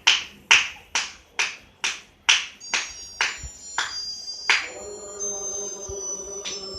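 Electronic tune with a steady beat of sharp, snare-like hits about twice a second. High held tones join about two and a half seconds in, and a lower held note about five seconds in.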